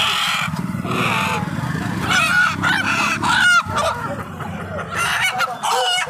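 Indian country (desi) chickens squawking loudly while being handled and pulled out of a cloth bundle: harsh, repeated distress squawks, with a rapid run of short calls about three and a half seconds in.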